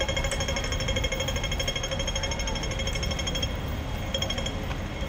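Rapid electronic ticking: a fast, even rattle of beeps that stops about three and a half seconds in and comes back in one short burst near the end.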